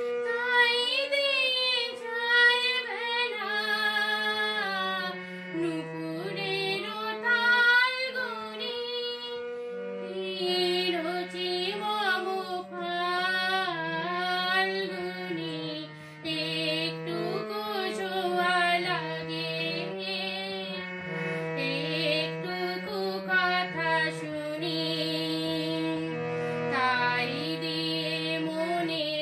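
A woman singing a slow melody while accompanying herself on a harmonium, its held notes sounding steadily under her voice and changing in steps.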